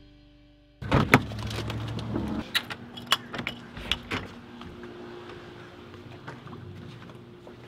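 Key clicking and rattling in a door's deadbolt and knob lock, the lock turning and the door handle clicking as a door is unlocked and pushed open: a string of sharp clicks and knocks, over a steady low hum.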